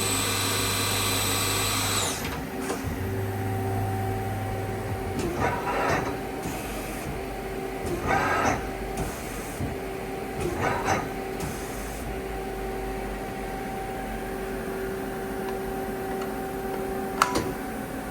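Doosan Puma 2600Y CNC lathe: the live-tool spindle whines at 3000 RPM, then cuts off about two seconds in. Three short servo-driven movements follow, typical of the tool turret indexing, and a sharp click comes near the end, all over the machine's steady hum.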